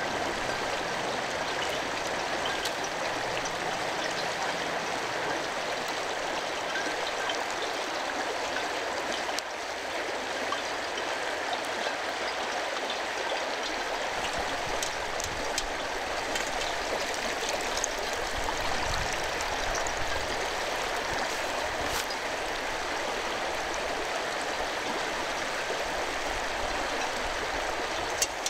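Steady rush of a stream or river flowing.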